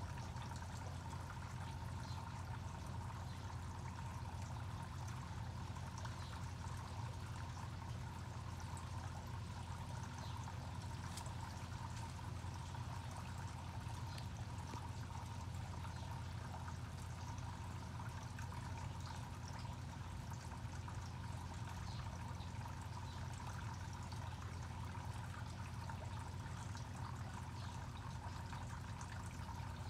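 Steady trickling, running-water noise over a low, unchanging hum, with a thin steady tone above it.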